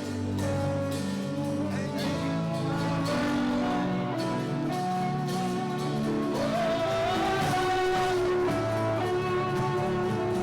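Slow live worship music with long held notes.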